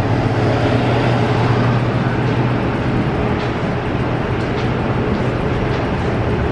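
Steady mechanical hum and rushing noise of subway station machinery, with a constant low drone and a few faint ticks.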